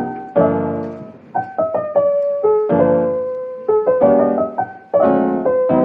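Background piano music: soft chords and single melody notes, each struck and left to fade.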